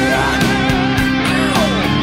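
Rock song instrumental passage: guitar playing a lead line with bending notes over bass and a drum beat.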